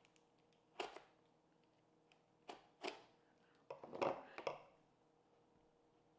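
Knife cutting and prying at a cardboard box: a few short, sharp scrapes about a second in and near three seconds, then a louder cluster of knocks and rustling around four seconds as the knife is set down on the tabletop and the box is handled.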